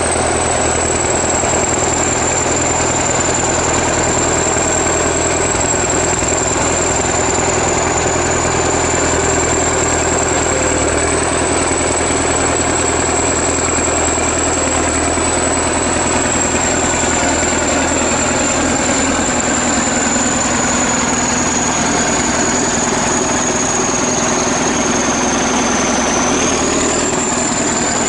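ChTZ T-170 bulldozer's diesel engine running at a steady idle, with a thin high whine over it that sags slightly about 26 seconds in and jumps back up a second later.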